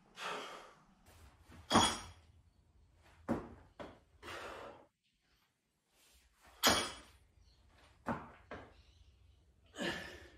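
Barbell split jerks: several sharp thuds a second or two apart as the lifter's feet land in the split on rubber gym flooring, with hard breaths between.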